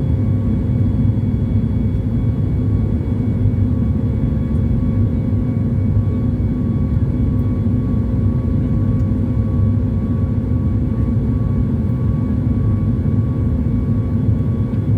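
A steady low mechanical drone with a few faint steady tones above it. It does not change throughout.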